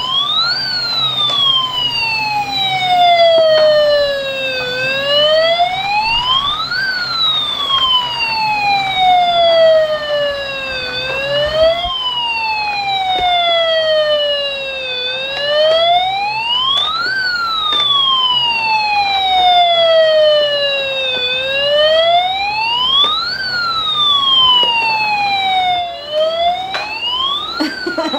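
Battery-powered bump-and-go toy fire truck's electronic siren: a tone that climbs quickly and then slides slowly down, repeating about every six seconds.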